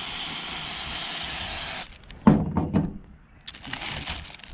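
Aerosol can of food-grade silicone spray hissing in one steady burst into a zip-top bag of air-rifle slugs, cutting off about two seconds in. Shortly after come a few louder knocks, then small crinkles and clicks as the plastic bag is handled.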